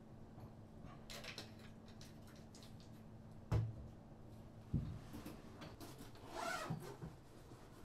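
Objects being handled at a wooden desk: light rustling, then two dull knocks on the desk a little over a second apart, and a rubbing scrape near the end, over a faint steady hum.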